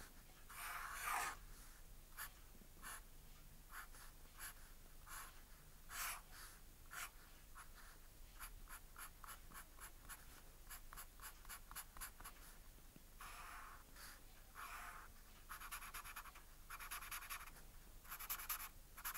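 Faint scratching of a fine-tip drawing pen on paper. Single strokes come first, then a quick run of short hatching strokes, and longer scratchy strokes near the end.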